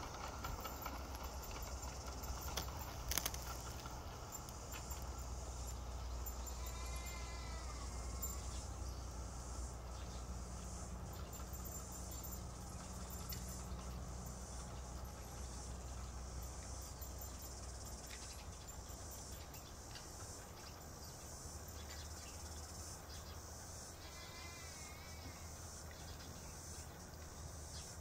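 Insects chirring steadily, over a low steady rumble. A short warbling call sounds about a quarter of the way in and again near the end.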